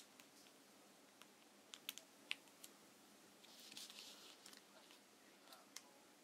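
Faint crackling and tapping of origami paper being folded and creased by hand, with a cluster of sharp crisp clicks about two seconds in and a short rustle near four seconds.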